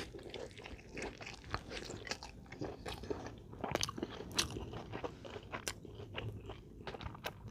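Close-up chewing and crunching of a hoagie sandwich: irregular small crunches and wet mouth clicks as bites of the bread and filling are chewed.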